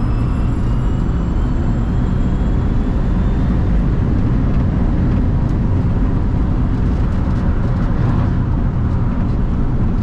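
Tesla Model S Plaid electric car accelerating: a thin, high electric-motor whine slowly rising in pitch over the first few seconds, over a loud, steady rushing noise.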